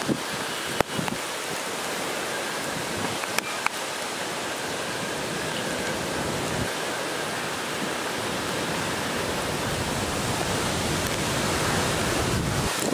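Hurricane wind and torrential rain, a steady rushing noise that grows slowly a little louder, broken by a few brief sharp knocks.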